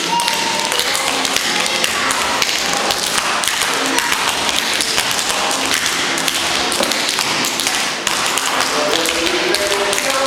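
Tap shoes of a group of small children and their teacher tapping on a stage floor: a dense, irregular clatter of many taps.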